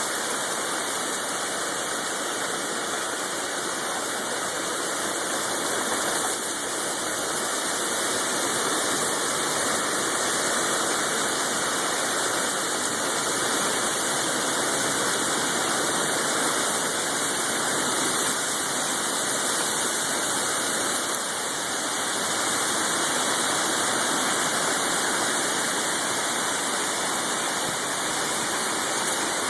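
Storm wind with gusts up to 75 mph, a steady rushing noise that swells and eases slightly.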